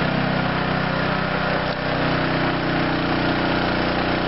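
An engine running steadily at an even speed, with wash water pouring out of a steel outlet pipe into a settling tank.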